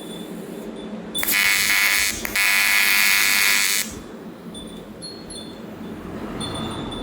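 AC TIG welding arc on aluminium buzzing in two short bursts, about a second and then about a second and a half, with a brief break between; each burst starts and stops abruptly.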